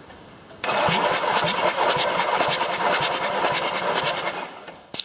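VW Transporter T4 2.5-litre five-cylinder TDI diesel engine being cranked by its starter motor for a compression test. It spins over with a fast, even chugging for about four seconds, then winds down, with a sharp click just after it stops.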